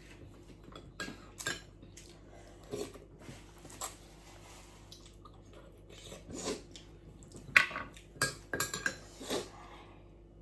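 Cutlery clinking and scraping against dishes in a string of separate short clicks, busiest and loudest about three-quarters of the way through.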